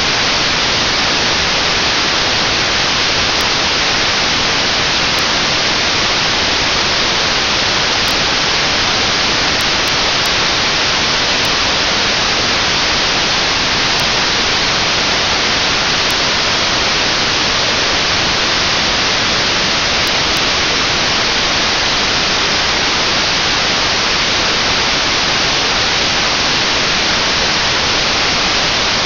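Steady, loud FM radio static: the receiver's demodulated hiss with no signal on the NOAA 19 APT channel, because the satellite has not yet risen above the horizon.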